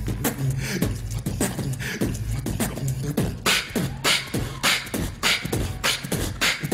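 Human beatboxing into a handheld microphone: a low held bass tone under rapid rhythmic vocal drum sounds. From about three seconds in, sharper hissing snare-like strikes take over.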